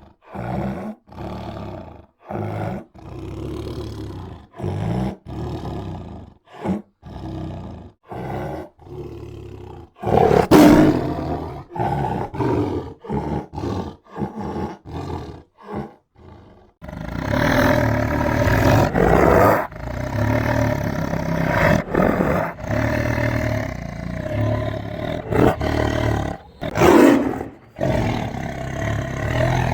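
Tiger roaring. For about the first ten seconds it gives short grunting roars about twice a second. Then come louder, longer roars, and from about seventeen seconds in an almost unbroken run of overlapping roars.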